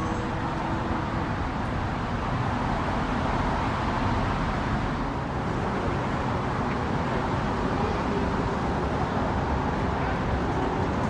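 Steady engine noise with a constant low rumble and no clear events, typical of boat motors running.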